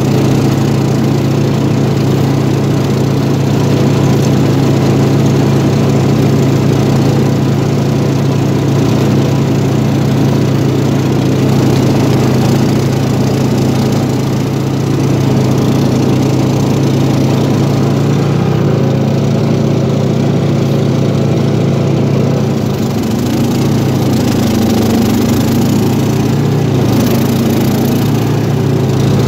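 Cub Cadet XT1-LT46 lawn tractor's 20 hp Kohler Courage single-cylinder engine running steadily while driving a three-stage snowblower attachment that throws snow. The engine note holds even, shifting slightly in pitch near the end.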